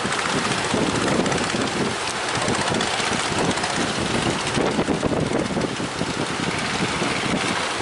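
Strong wind buffeting the microphone: a loud, continuous rushing noise with uneven gusts.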